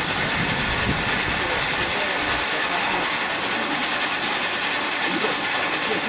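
Steady mechanical noise of a sludge-turning machine running over the drying bed in a solar sludge-drying greenhouse, with a low rumble in the first couple of seconds.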